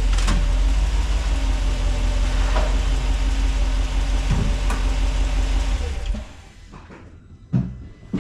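Truck engine idling steadily with a deep rumble, its oil freshly changed, then shut off about six seconds in; a couple of short knocks follow.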